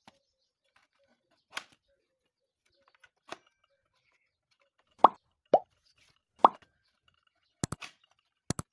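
Pop sound effects: three short, loud pops about half a second to a second apart, the middle one dropping in pitch, followed near the end by two quick double clicks, as in a like-and-subscribe end-screen animation.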